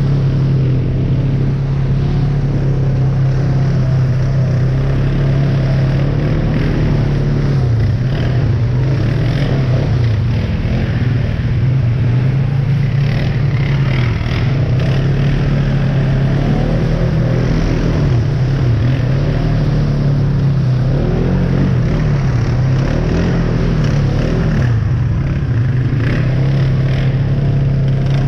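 ATV engine running steadily under the rider, its pitch dipping and rising a few times midway as the throttle is eased and opened again.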